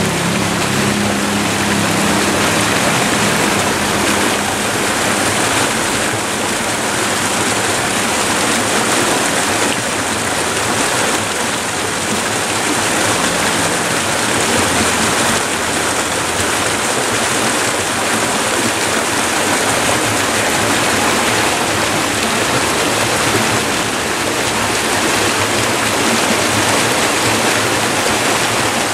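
Shallow river rushing and splashing over rocks in small rapids: a loud, steady roar of whitewater.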